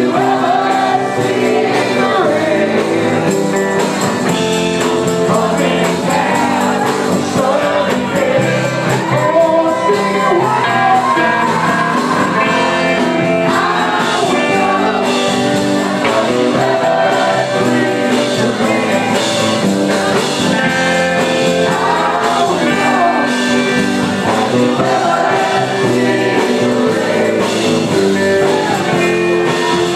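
Live band playing a rock song with singing, acoustic and electric guitars together, at a steady level.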